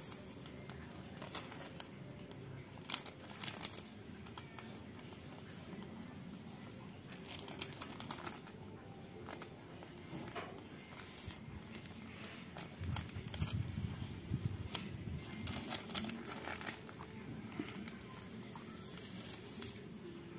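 Thin plastic bag crinkling and tearing in several short bursts of crackles as a sharp golok blade is drawn across it to slice it, a test of whether the slaughtering golok is sharp enough.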